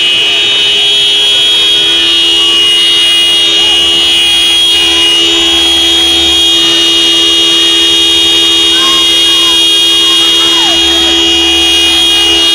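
Car horns held down in one long, steady, loud blast with two fixed tones, with faint shouting underneath.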